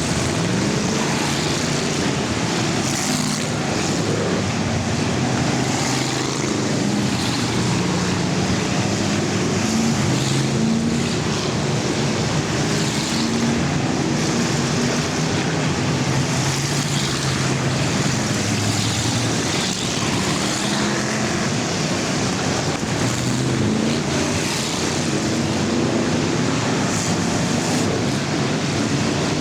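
Engines of several full-size enduro race cars running together, their pitches rising and falling as they lap the track, over a steady loud wash of engine and tyre noise.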